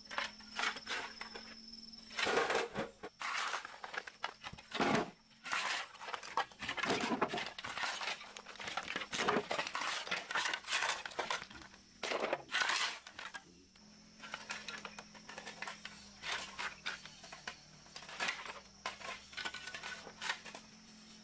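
Irregular clinks, knocks and rustles of hard objects being handled, busiest in the first two-thirds and sparser near the end.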